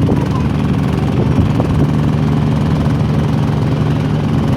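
Fishing boat engine running at a steady pace, a constant low drone.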